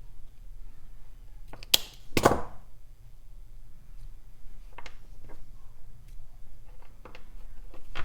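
Bench work with hand tools and parts: a sharp click, then a heavier thump just after two seconds in, followed by a few light clicks.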